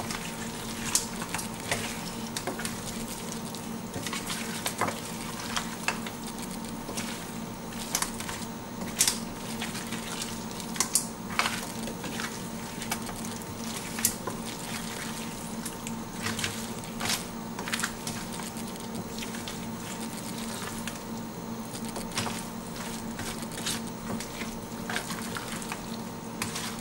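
Wooden spatula stirring crab pieces through thick masala in a stainless steel pan, the mix frying with no water added: a steady sizzle with frequent short scrapes and knocks against the pan. A faint steady hum runs underneath.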